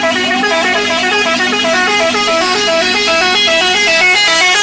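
Telolet horn playing a fast tune of short stepped notes that jump up and down several times a second.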